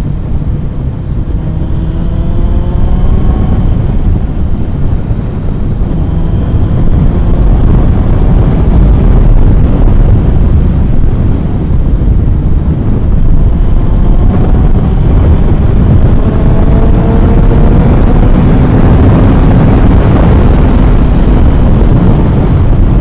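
Kawasaki ZX-9R's inline-four engine pulling hard under acceleration, its note climbing several times as it goes up through the gears, under heavy wind rush on the microphone.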